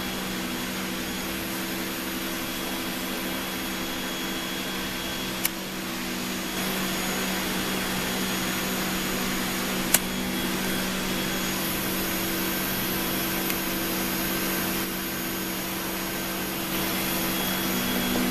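Steady whir of the cone calorimeter's air-handling system (exhaust blower and gas-sampling pump) running, with a low hum. There are two sharp clicks, about 5 and 10 seconds in.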